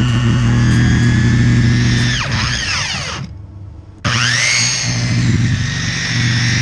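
Corded circular saw cutting into a gravel-surfaced roof: the motor runs steadily, then winds down in a falling whine a little past two seconds in and stops. About four seconds in it is switched on again, spins up in a rising whine and runs on steadily through the cut.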